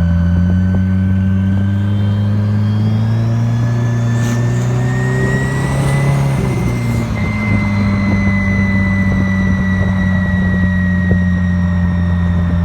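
The AWD Spyder's engine runs steadily, with a faint high whine riding above it. Its pitch climbs slowly for several seconds, drops back about seven seconds in, then holds steady.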